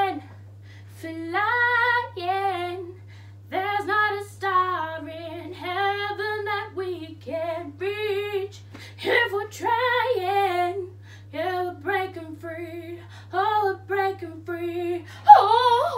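A woman singing unaccompanied in drawn-out phrases with short breaks between them, over a faint steady low hum.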